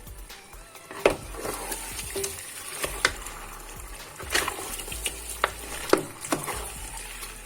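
A cooking spoon knocking and scraping in a pot during stirring, with sharp knocks every half second to second and a half, over a faint steady hiss.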